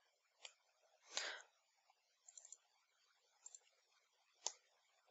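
Faint, sparse computer keyboard key clicks: single strokes, a quick run of three about two seconds in and a pair a little later. About a second in there is one longer, louder soft noise.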